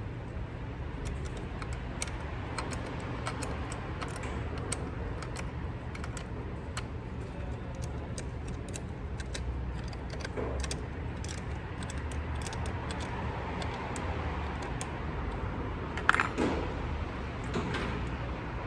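Irregular metallic clicks and clinks of hand tools as a car battery is fitted and its terminals fastened, with one louder knock about 16 seconds in.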